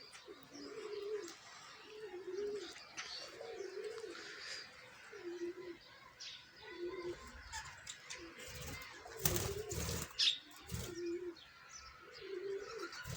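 Cage birds calling: a low call repeated about once a second, with faint higher chirps behind it. A few brief rustling knocks come about two-thirds of the way through.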